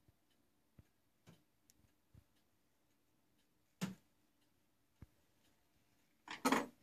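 Faint scattered ticks and clicks, then a sharp knock about four seconds in and a louder clatter near the end: handling noise around the workpiece, with the mill stopped.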